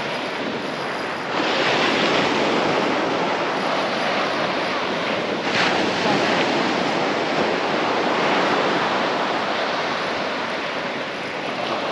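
Surf breaking and washing up a sandy beach, swelling louder about a second in, with wind on the microphone.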